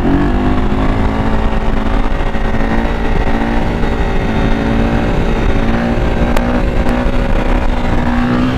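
KTM 450 EXC single-cylinder four-stroke engine pulling at steady revs while the supermoto rides a wheelie, with heavy wind noise on the microphone.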